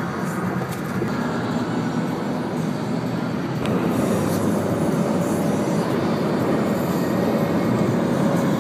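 Steady road and wind noise of a car travelling at highway speed, heard from inside the cabin, with tyres rumbling on the concrete surface. It grows a little louder about four seconds in.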